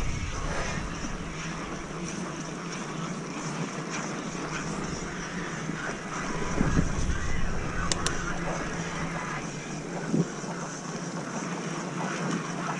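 Fat-tire mountain bike rolling fast over a wet dirt trail: steady tyre and drivetrain noise, with wind buffeting on the microphone near the start and a sharp double click about eight seconds in.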